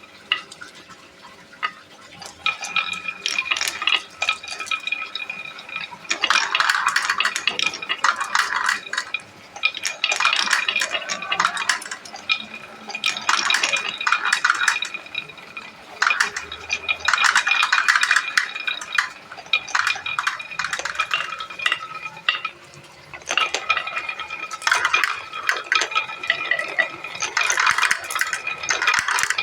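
Marbles rolling and clattering down a marble run's wooden slopes and through its pipes, in repeated waves of dense clicking a second or two long. A steady high ringing tone runs under most of it.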